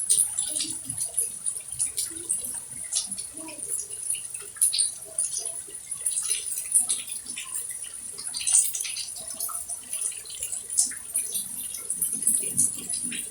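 Water dripping and splashing in quick, irregular ticks, over a thin steady high whine and faint distant voices.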